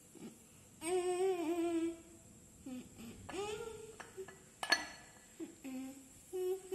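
Someone humming a tune in short, wavering phrases, with one sharp tap about halfway through.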